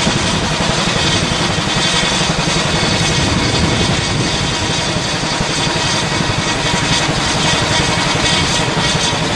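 Chinook tandem-rotor helicopter running at close range: a loud, steady din of rotor chop and turbine whine, with a fast low beating from the rotors.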